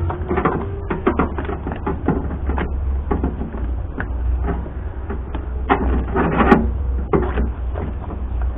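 Plastic vapor-barrier sheeting rustling and crinkling as it is handled and pressed against a truck's inner door, with irregular small clicks and taps over a steady low hum.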